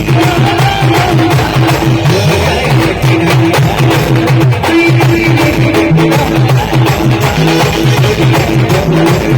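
Live band music played loud: a fast, steady repeating bass pattern under a melody, with drums keeping the beat.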